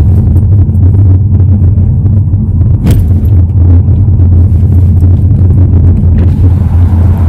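Steady low rumble of a car on the move, loud and even throughout, with a single sharp click about three seconds in.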